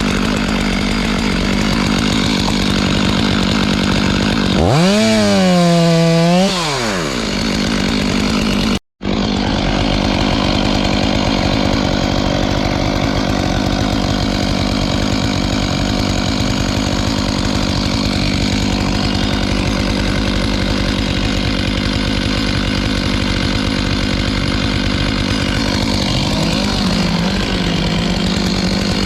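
Two-stroke chainsaw running at high speed, cutting through wood. About five seconds in, the engine pitch sweeps up and back down, and the sound cuts out for an instant a few seconds later.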